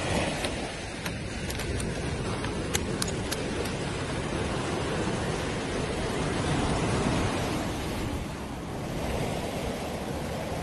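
Surf washing onto a sandy beach: a steady rushing noise, with a few faint ticks in the first few seconds.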